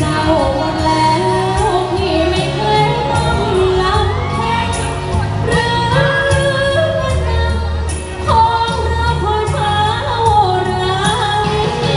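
A woman singing a Thai song live into a microphone over amplified band backing, with deep bass and a steady beat.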